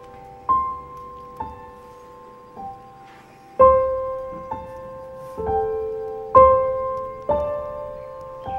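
Background piano music: slow, separate notes and chords, each struck and left to ring out.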